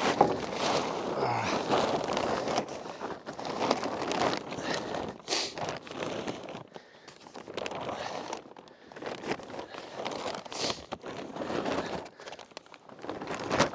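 Plastic tarp crinkling and rustling under a person kneeling and crawling over a log roof, with irregular scuffs and small knocks.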